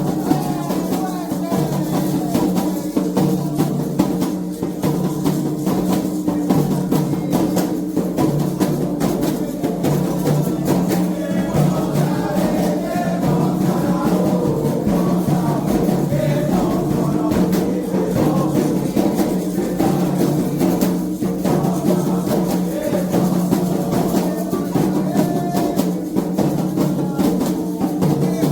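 Candomblé ritual drumming on atabaque hand drums, a dense steady rhythm of strokes, with voices singing over it.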